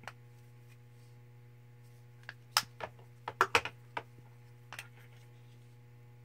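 Plastic blush compacts clicking and tapping as they are handled, several sharp clicks bunched in the middle, over a steady low hum.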